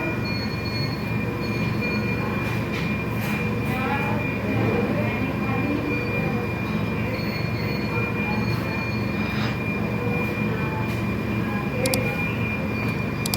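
Steady rumbling hiss of a neonatal ventilator and its hospital equipment, with a constant high whine and a few short electronic beeps.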